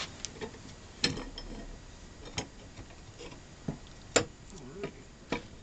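Irregular metal clicks and knocks as the parts of a Craftsman bench vise are handled and taken apart, about half a dozen in all, the loudest a little past the middle.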